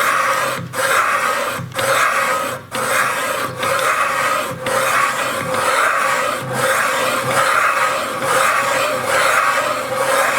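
Carbide cutter of a hand-turned valve-seat cutting machine scraping a cylinder-head valve seat: repeated rasping strokes about once a second, with brief pauses between turns, as the seat is cut after the cutter has been lowered 0.05 mm.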